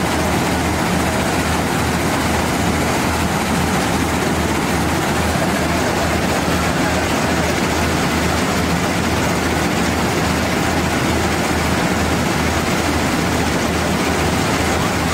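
Combine harvester's diesel engine running steadily with a deep, even drone.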